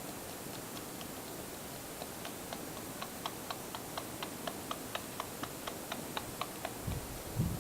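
Nursing kittens suckling at their mother's teats, making wet smacking clicks in a quick even rhythm of about four or five a second. The clicks grow clearer about two seconds in and stop near the end, where a couple of low thumps follow.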